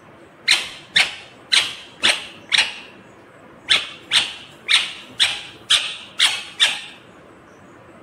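Rose-ringed parakeet giving a series of sharp calls, about two a second: five in a row, a short pause, then seven more.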